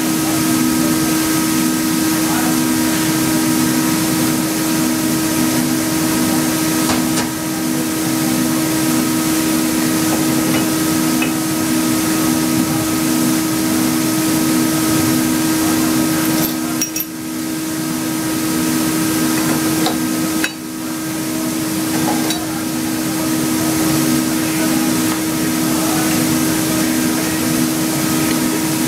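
Workshop machinery running steadily and loudly: an even fan-like hiss over a constant hum and a pulsing lower note, with a few faint metallic clicks from tool rings being handled.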